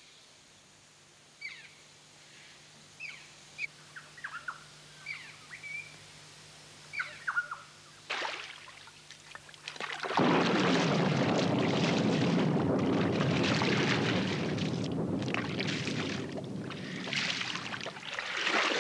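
Birds calling in jungle, with short chirps and falling whistles. About ten seconds in, the sound jumps to a loud, steady rush of water as a canoe is poled fast through shallow river water.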